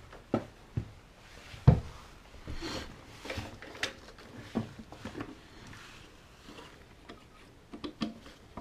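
Irregular knocks, clicks and short rustles of hand work, with tools and parts being moved and set down. There is one sharp knock about two seconds in.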